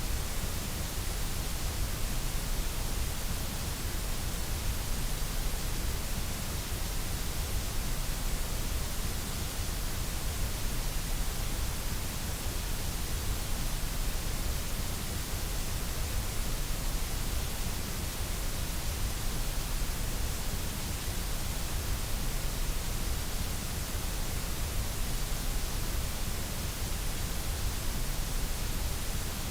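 Steady, unchanging white noise: an even hiss with a low rumble beneath it.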